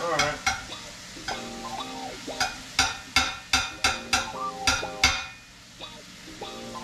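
A utensil scraping and knocking against a frying pan as chicken, onion and minced garlic are stirred, over a frying sizzle; the scrapes come quickly from about two seconds in and ease off about five seconds in.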